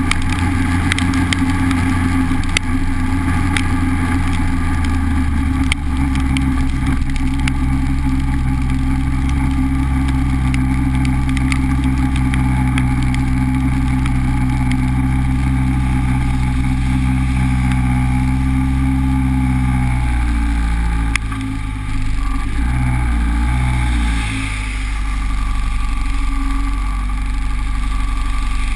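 Honda Civic's engine running steadily while driving, under a steady rush of road and wind noise. About 20 seconds in, the engine note wavers for a few seconds, then settles at a lower pitch.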